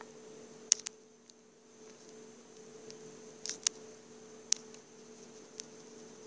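Stylus tapping on a tablet touchscreen while lines are drawn: a few scattered sharp ticks, some in quick pairs, over a faint steady electrical hum.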